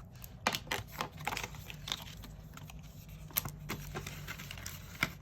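Scattered light clicks, taps and rustles of paper cash envelopes and bills being handled, with a few sharper ticks spread through.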